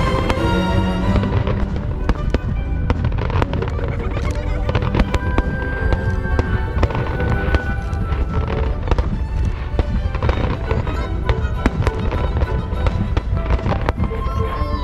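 A fireworks display with many shells bursting and crackling in quick, dense succession, and orchestral music underneath.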